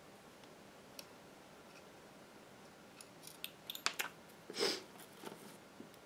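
Faint room tone, then from about halfway a scatter of light metal clicks and scrapes as a small M3 screw and a screwdriver are worked against a metal laptop drive caddy, with one brief soft rustle.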